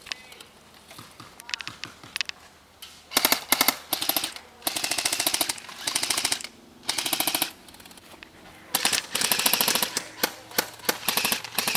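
Airsoft guns firing in rapid full-auto bursts of BB shots: about four bursts of fast, even clicking, the longest near the end, with scattered single shots between.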